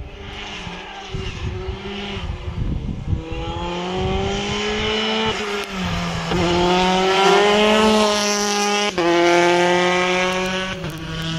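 Rally car accelerating hard, its engine revs climbing and then dropping sharply at each of several upshifts. It grows louder as the car comes nearer, loudest in the second half.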